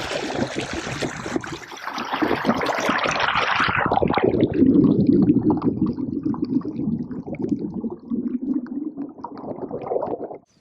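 Water splashing and gurgling. It turns muffled and low about four seconds in, then cuts off suddenly.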